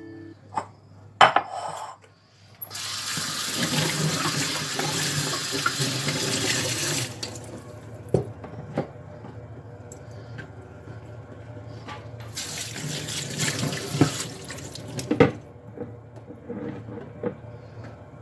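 Kitchen tap running into a sink twice, for about four seconds and then about three, with clicks and knocks of dishes being handled around it.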